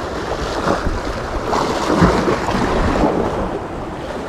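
Wind buffeting the microphone over sea water lapping at a harbour wall, a steady rushing noise with a louder burst about two seconds in.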